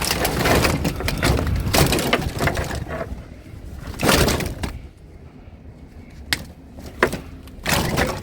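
Scrap debris being pulled apart and broken, with a run of cracking and rattling, one loud burst about four seconds in, then a few sharp knocks.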